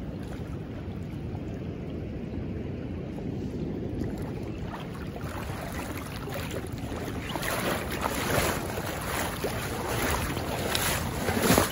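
River current rushing, with wind buffeting the microphone. From about seven seconds in, irregular splashes and scrapes join it as someone wades through rocky shallows.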